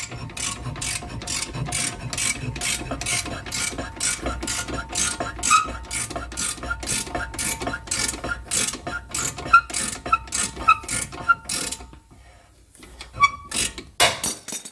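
Ratchet clicking steadily, about three to four clicks a second, as the bolt of a ball joint separator is wound down to break the taper of a Mini R53's front lower ball joint. The clicking stops about twelve seconds in, with a few odd clicks near the end.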